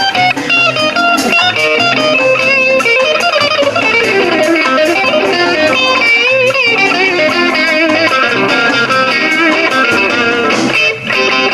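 Blues played on a Telecaster-style electric guitar through a small amplifier, with a harmonica wailing into the microphone in bent, wavering notes. The music breaks briefly near the end.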